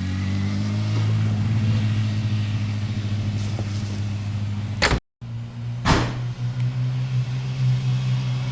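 Yamaha R6 inline-four engine running at a steady speed, its pitch holding nearly level. It cuts off abruptly about five seconds in, then comes back steady after a short sharp noise.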